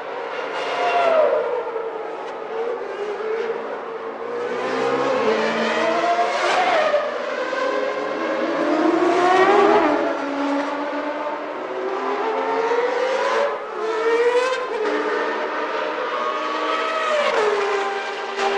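1991 Formula One racing engines at high revs, the pitch climbing over a few seconds and then dropping sharply at each upshift, several times over, with more than one engine note overlapping.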